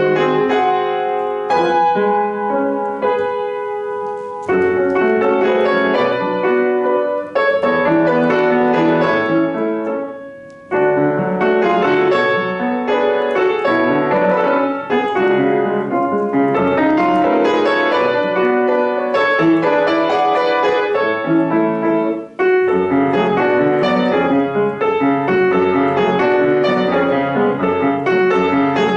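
Solo piano playing a classical piece in continuous runs of notes, with short breaks between phrases about ten seconds in and again about twenty-two seconds in.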